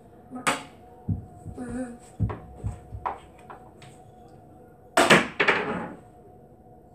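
Knocks and thumps from handling a small tabletop pool table and the things on it, a few short hits in the first few seconds, then a louder clatter lasting about a second near the end.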